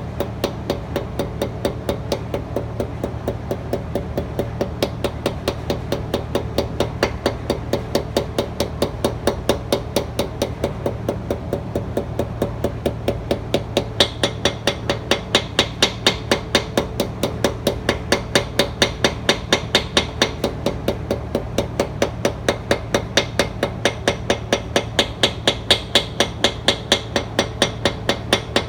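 Hammer giving a steady run of light taps to drive a new pinion seal into a Ford 8.8 rear axle housing. From about halfway through, the taps grow louder and brighter as the tone goes from hollow to solid, the sign that the seal is seating.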